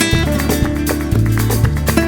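Music with a steady beat over sustained bass notes.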